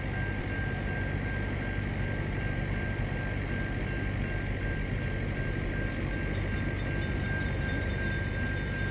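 Grade-crossing bell ringing in a fast, even beat over the steady low rumble of a diesel locomotive's engine from a train on the way.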